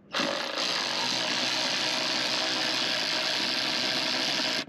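Cordless electric ratchet running steadily for about four and a half seconds, spinning out a bolt on the car's airbox, then stopping abruptly.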